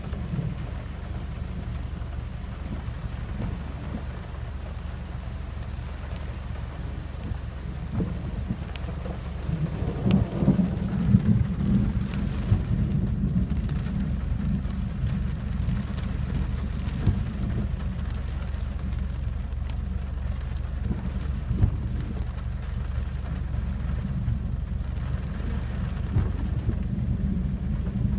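Steady rain falling on a car, heard from inside it, with scattered small drops ticking. About ten seconds in, a thunder rumble swells for a few seconds and dies back into the rain.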